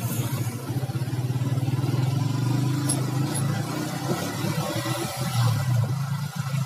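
Motorcycle engine running as the bike rides along, getting louder in the first couple of seconds as it pulls away after a turn, its pitch shifting briefly about five seconds in.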